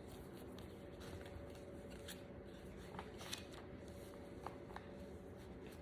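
Faint paper rustling with a few soft ticks: the page of a picture book being turned and handled.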